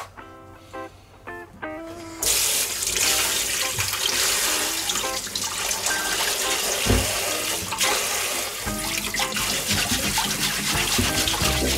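Kitchen tap running full into a stainless steel bowl in a sink, splashing as a burdock root is rinsed under the stream. The water comes on about two seconds in.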